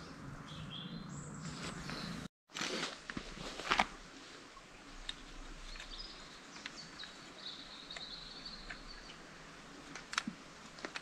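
Outdoor ambience with small birds chirping and one bird singing a high, steady song for a few seconds in the middle. About two and a half seconds in, after the sound cuts out for a moment, there is a burst of loud rustles and clicks, with scattered ticks later on.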